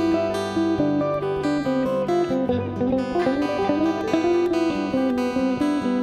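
Guitar playing a picked single-note melody over held low bass notes that change every second or two.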